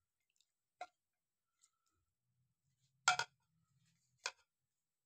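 Three short sharp clicks of a spatula knocking against the plate and frying pan as raw beef pieces are pushed into hot water. The loudest comes about three seconds in, with long quiet gaps between them.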